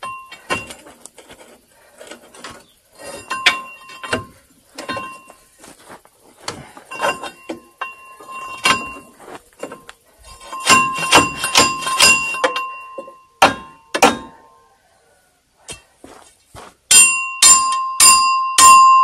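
Hammer blows on steel: irregular clanks and knocks, each leaving a short metallic ring, then a run of about five hard, loudly ringing strikes near the end.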